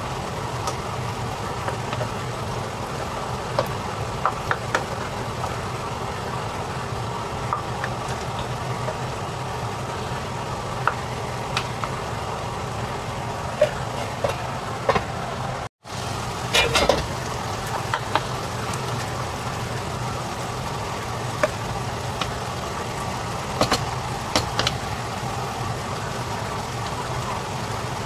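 A spatula scraping and tapping against a cast-iron pan as a wet mixture of ground pork, tomato and potato is stirred, over a steady low hum. The scrapes come scattered, with a louder cluster a little past halfway and again a few seconds later.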